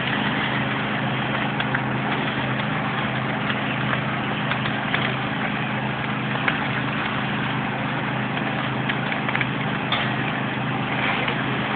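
Large burning roof crackling, with scattered small cracks and one sharper crack near the end, over a steady engine hum of vehicles idling.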